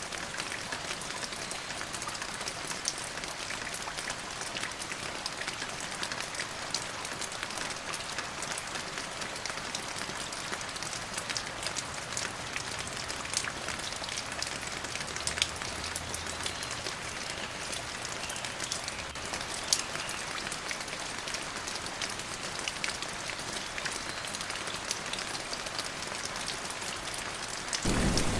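Steady rain falling, an even hiss with many individual drops ticking sharply on a surface; it turns heavier and louder right at the end.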